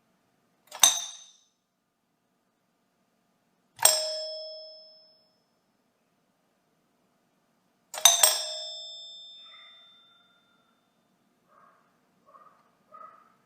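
Doorbell chime struck three times, a few seconds apart, each a bright ding that rings out and fades. The third is a quick double strike that rings longest. Near the end come a few faint, short pitched calls.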